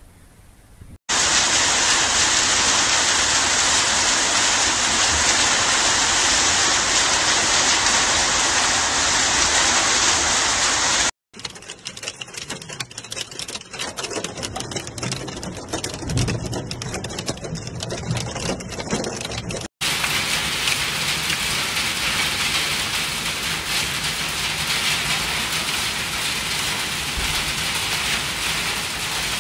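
Heavy rain and hail, heard in several clips cut together. First comes a loud, steady downpour. A rougher stretch follows, recorded from inside a moving vehicle. Near the end, hail and rain fall on a flat panelled roof.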